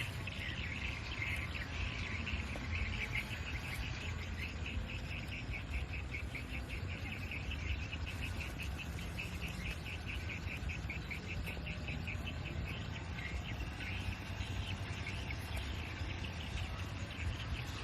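Insects chirping in a steady, rapidly pulsing trill, over a constant low rumble.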